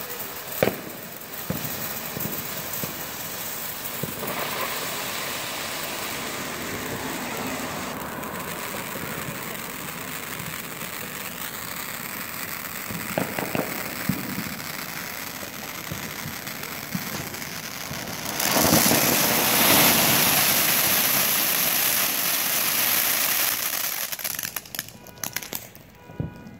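Reaper fountain firework from World Class Fireworks spraying sparks with a steady hiss and scattered crackles, including a sharp pop about a second in. It grows louder for several seconds about two-thirds of the way through, then fades and sputters out as the fountain burns down near the end.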